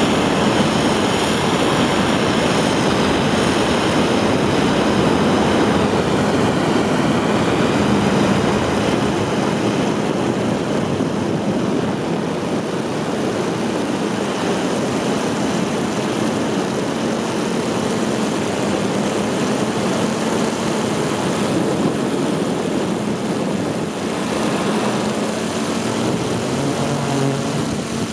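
75-tonne-thrust kerosene and liquid-oxygen rocket engine roaring steadily during a long static firing test, a continuous rush of noise with a faint steady hum under it.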